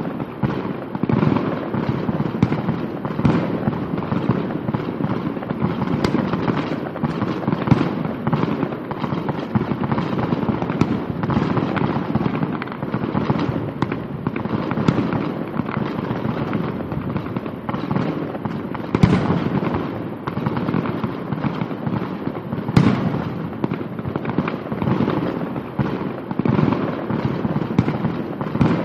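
Recorded fireworks sound track for a miniature light show: a continuous barrage of pops, bangs and crackling, with sharper bangs about 19 and 23 seconds in.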